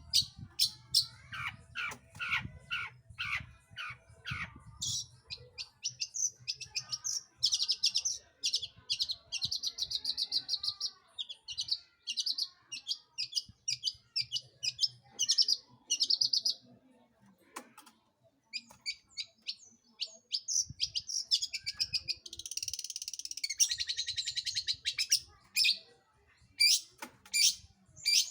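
Long-tailed shrike (cendet) singing a varied, energetic song: runs of sharp, rapid chirps and trills, with a brief pause about two-thirds through and a fast buzzy chatter shortly after.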